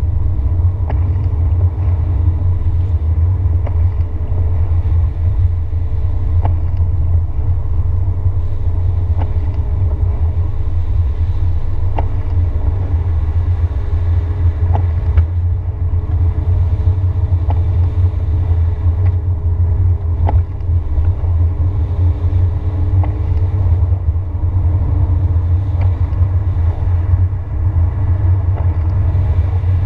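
Car driving at highway speed, heard from inside the cabin: a steady low road-and-engine rumble with a faint hum that slowly drifts up and down in pitch, and occasional light ticks.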